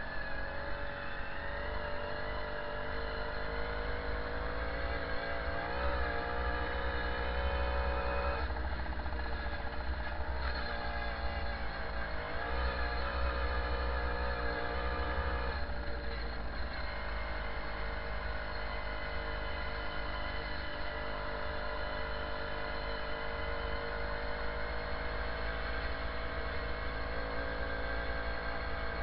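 Jawa Babetta 207 moped's small two-stroke single-cylinder engine running under way, its pitch rising and falling with the throttle and speed several times, over a low rumble on the helmet-mounted microphone.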